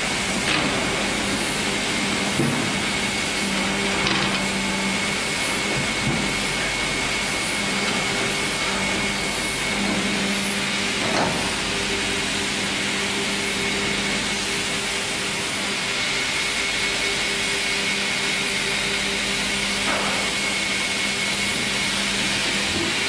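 FİMAKSAN sawmill band saw machinery and carriage drives running with no cut under way: a steady whir with a constant low hum and a thin high whine, and a few faint knocks.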